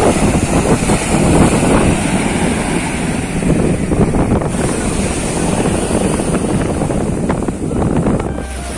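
Surf breaking and washing up a sandy beach, heavily overlaid by wind buffeting the phone's microphone.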